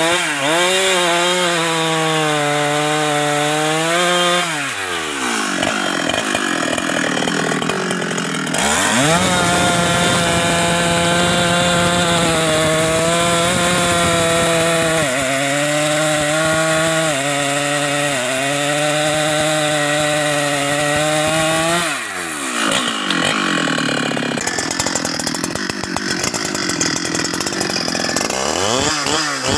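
Husqvarna 394XP two-stroke chainsaw cutting through a large klumpit log, held at high revs under load. The engine note drops back twice, about five seconds in and again about twenty-two seconds in, then revs back up into the cut.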